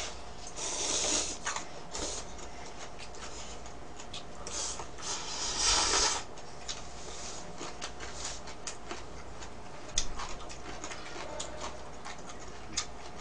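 A person eating instant ramen noodles: two long slurps, about a second in and around five to six seconds in, with chewing clicks and small mouth noises between them.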